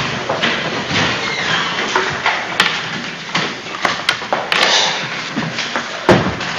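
A roomful of people sitting back down: wooden chairs knocking and scraping on a wooden floor, with rustling and scattered taps. A heavier thump comes about six seconds in.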